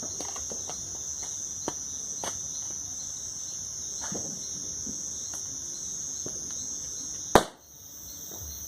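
Crickets chirping steadily, with the bonfire's burning wood giving scattered small crackles and pops. One loud sharp bang about seven seconds in.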